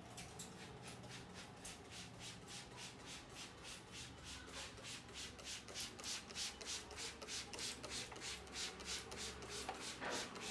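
Hands rubbing briskly back and forth over the scalp and hair in a head massage: a rhythmic swishing friction of about four strokes a second.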